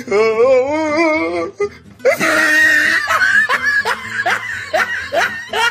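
Edited-in comedy laughter over music: a wavering, wobbling pitched sound first, then from about two seconds in a burst of loud laughter with repeated rising 'ha' strokes.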